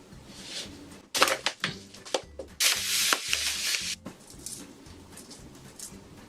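Shrimp being handled and eaten: crackly clicking of shell for about a second, then a louder rasping, rubbing noise lasting about a second and a half, with softer crackles after it.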